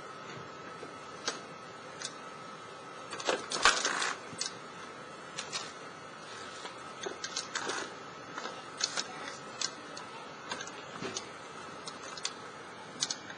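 Irregular knocks and clicks of the BigDog quadruped robot's feet striking and shifting concrete cinder blocks, with a louder clatter about three and a half seconds in. Beneath them runs a faint steady hiss with a thin high tone.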